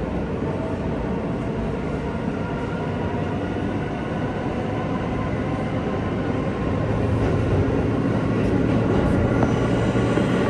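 NYC subway J train running through the tunnel, heard from inside the car: a steady rumble of wheels on rail with a low hum, growing louder about seven seconds in.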